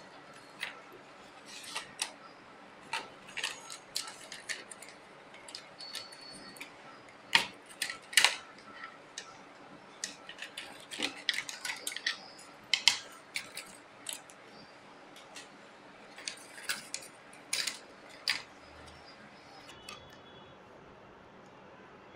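Irregular clicks, taps and clatter of a laptop motherboard and its plastic base chassis being handled and worked loose with a small screwdriver, with a couple of louder knocks about seven and eight seconds in.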